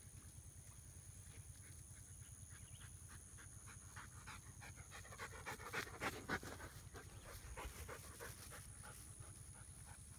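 Dogs panting hard from play, in quick rasping breaths that grow busiest and loudest about halfway through, over a faint steady low hum.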